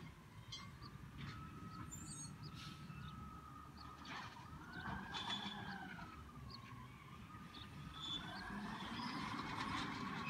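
Faint emergency-vehicle siren wailing, its pitch slowly rising and falling every few seconds, over a low engine rumble.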